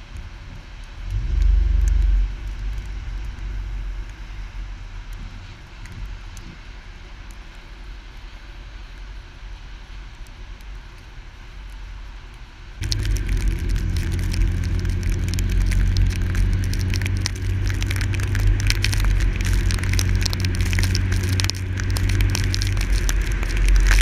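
Car on a wet, snowy road heard from outside on its hood: a low engine rumble at first, then, about halfway through, a sudden step up to a louder steady rush of tyre and wind noise with many small sharp crackles.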